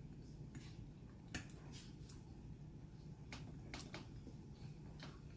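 Faint eating sounds over quiet room tone: a few soft, brief clicks and taps, spaced out.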